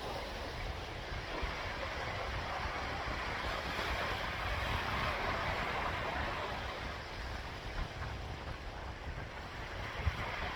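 Sea waves washing onto the shore, a steady surf that swells and eases a little midway, with a low rumble of wind on the microphone.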